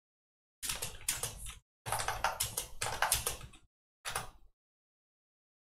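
Typing on a computer keyboard: rapid keystrokes in three short runs separated by pauses, the last run brief.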